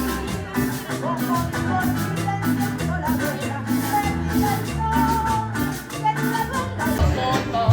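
Latin-style band music with a steady beat: bass notes, shaker percussion and a melody line. The sound changes sharply near the end.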